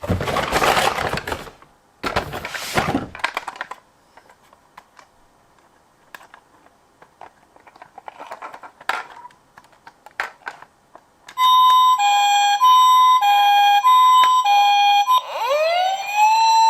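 Toy ambulance minicar's electronic siren, starting about two-thirds of the way in with a hi-lo two-tone pattern, about four high-low cycles, then switching to a wail that rises and holds steady. Before it, two loud noisy bursts in the first few seconds and scattered small clicks.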